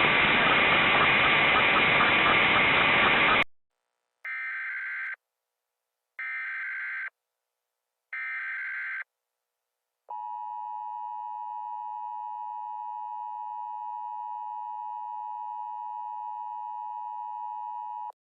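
Emergency Alert System broadcast tones. A few seconds of loud static give way to three short, buzzy digital data bursts (the SAME header) spaced about two seconds apart. Then the steady two-tone EAS attention signal sounds for about eight seconds and cuts off suddenly.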